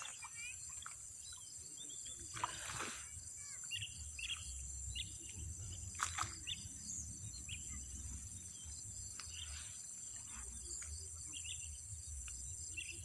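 Steady, high-pitched insect chorus, with scattered short bird chirps and a low rumble underneath; two brief knocks stand out about two and a half and six seconds in.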